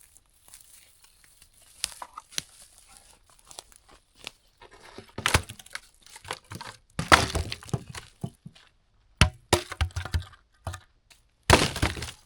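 Dry fallen aspen branches being snapped and broken by hand: a series of sharp cracks and short crackling bursts of splintering wood, irregularly spaced, the loudest about halfway and near the end.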